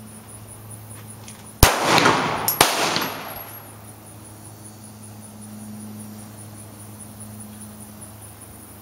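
Two shots from a Smith & Wesson M&P Shield 9mm pistol, about a second apart, each with a tail that rings out briefly.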